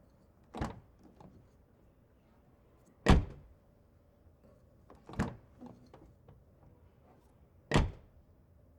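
Car door being shut four times, each a single solid slam, about two to two and a half seconds apart; the second and fourth are the loudest, and fainter clicks follow the first and third.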